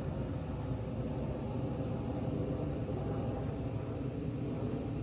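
A steady, high-pitched chorus of night insects such as crickets, with no break, over an even low rumble.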